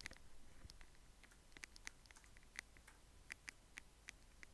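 Faint computer-keyboard typing: about a dozen separate keystroke clicks at an uneven pace as a short shell command is typed.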